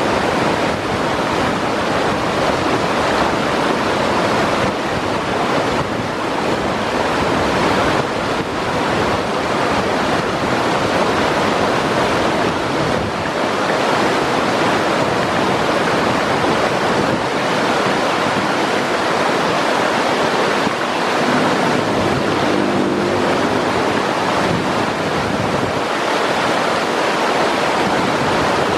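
White-water river rapids rushing steadily over and around boulders.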